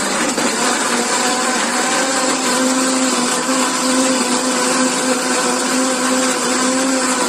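Britânia kitchen blender motor running steadily at a constant speed, blending ice, fruit pieces and juice.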